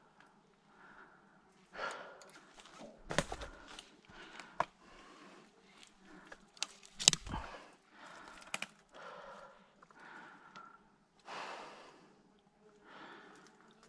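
Rustling and crunching in dry leaf litter and twigs, with a few sharp clicks and knocks, the loudest about three and seven seconds in, as an arrow shaft is poked among rocks and roots.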